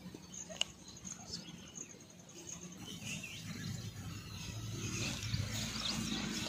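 Faint outdoor ambience with scattered bird chirps and a light low rumble in the second half.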